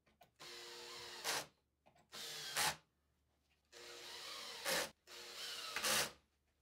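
Cordless drill-driver driving screws through plywood into an aluminium bearing block, in four short runs. Each run ends in a brief louder moment as the screw seats.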